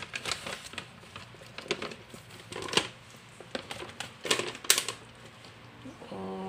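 Plastic bag rustling and crinkling as a hand shifts a pile of fresh cutlass fish inside it, in irregular sharp crackles, the loudest a little under halfway and again past the middle.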